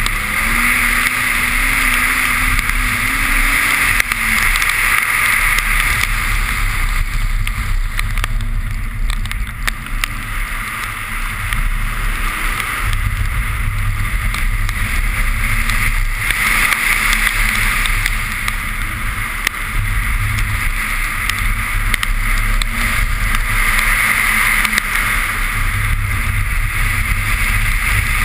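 A car driven hard on soaked pavement: a steady loud rush of tyre spray and wind, with the engine running underneath, its pitch rising and falling.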